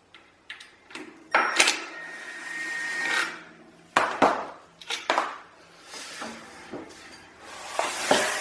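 Sharp knocks and clanks with two longer scraping stretches, the sounds of hands working the shipping support tube off a Rogue Echo air bike.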